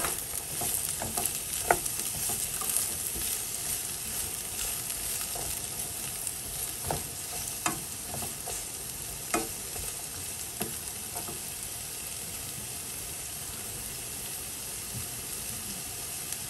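Sliced onion and celery sizzling in oil in a frying pan, with a wooden spatula knocking and scraping against the pan as they are stirred. The knocks thin out after about ten seconds, leaving the steady sizzle.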